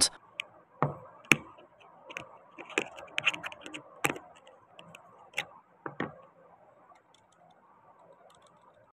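Scattered light clicks and taps of small plastic and metal air gun magazine parts being handled and of a small screwdriver working a tiny set screw out of the magazine housing. The clicks stop about six seconds in.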